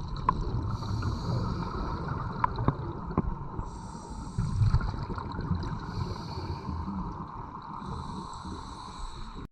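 Scuba diver breathing through a regulator underwater: a steady bubbling rumble with repeated bursts of hiss, four in all, and a few sharp clicks.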